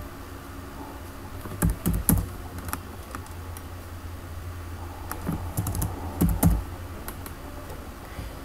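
Computer keyboard keys clicking in two short runs of keystrokes, one about two seconds in and another between five and six and a half seconds, over a steady low hum.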